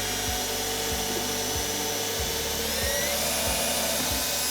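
Electric drill running steadily, boring holes through a wooden drawer front for knob or pull hardware. Its whine rises a little in pitch about three seconds in.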